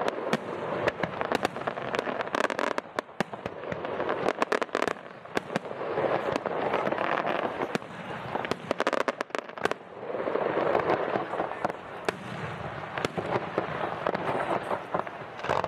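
Fireworks display: a dense run of sharp bangs and crackling shells, coming in swelling waves.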